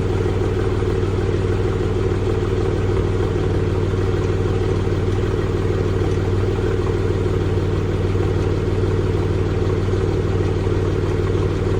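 BMW 335i's N54 twin-turbo inline-six idling steadily after a cold start, with a note that the owner says sounds like it is misfiring.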